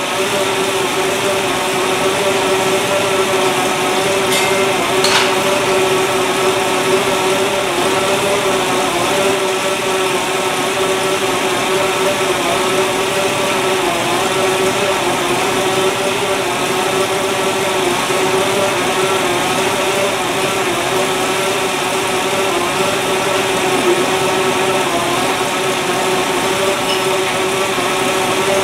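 Freshly rebuilt 350 small-block Chevrolet V8 idling steadily on its first run after the rebuild.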